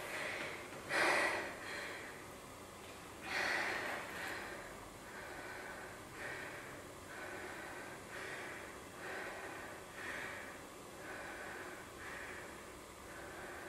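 A person breathing hard: two louder breaths in the first few seconds, then softer, even breaths about once a second.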